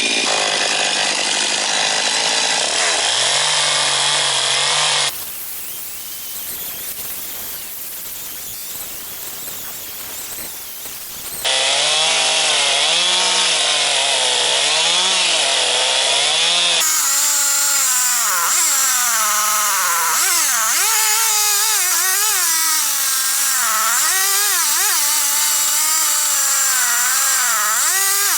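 Two-stroke chainsaw cutting into a very hard, dense red box eucalyptus log, the engine's pitch wavering up and down as the chain labours in the wood. About five seconds in it drops to a quieter, hissier stretch for some six seconds before the loud cutting comes back.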